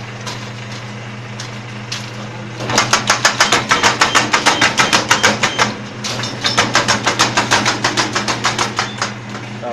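Multi-electrode spot welding machine welding galvanized wire mesh, its electrodes firing one after another as two runs of rapid sharp snaps, about six a second, the first starting about three seconds in and the second after a short pause. A steady low hum runs underneath.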